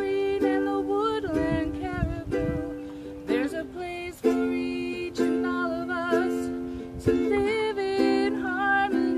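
Ukulele strumming chords, with a voice singing over it in held, wavering notes.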